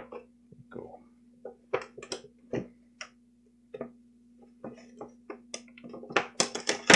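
A cardboard doll box being handled by hands: irregular light clicks and taps, with a few sharper clicks near the end, over a faint steady hum.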